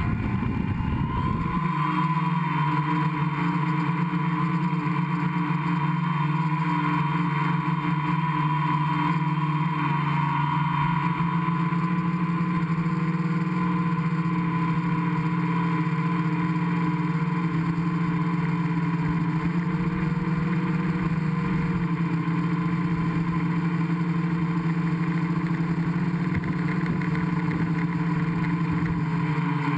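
Gaui 500X quadcopter's electric motors and propellers running at flying speed, heard from the camera on its frame. They make a steady, even hum with a few constant tones throughout.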